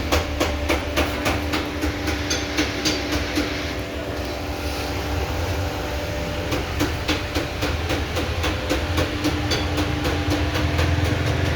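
Steering noise in a 2016 Audi A4: rapid, irregular clicking and knocking, several a second, over the steady hum of the engine idling. The mechanic traces it to the steering shaft's universal joint (the steering cross), a dry joint that he treats with WD-40.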